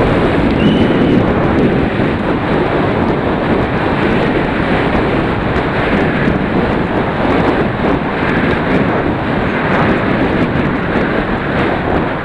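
Loud wind buffeting the microphone of a camera moving fast down a downhill mountain-bike course, with faint clicks and rattles mixed into the rush.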